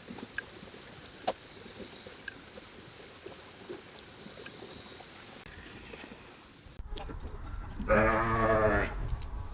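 Scattered light clicks and knocks, then near the end a single wavering bleat about a second long from a farm animal such as a goat or sheep, over a low rumble.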